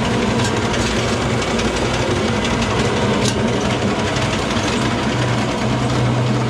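Old stone mill cracking wheat into bulgur, running steadily with a low hum and an even mechanical rattle.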